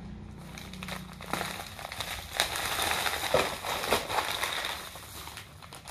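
Black plastic mailer bag crinkling and crackling as it is handled and opened, with irregular small crackles that grow busier about two seconds in.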